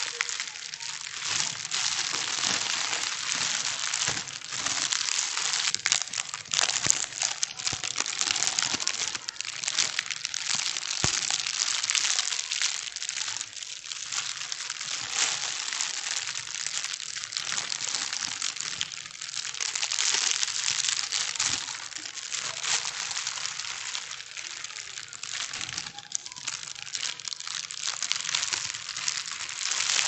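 Plastic bag being crumpled and crinkled without pause: a dense crackle of many small crinkles that grows louder and softer by turns.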